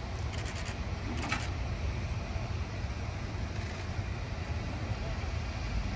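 Idling locomotives in a rail yard: a steady low rumble, with a couple of brief hissy bursts in the first second and a half.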